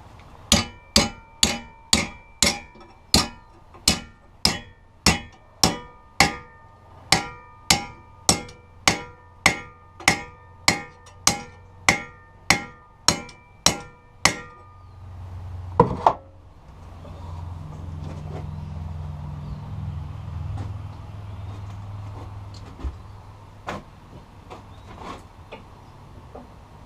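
A hammer beating a 1/8 inch steel strip, about two ringing metal strikes a second for roughly fourteen seconds: the strip is being knocked back into shape where it bowed in the middle during bending. One harder knock follows, then a low hum.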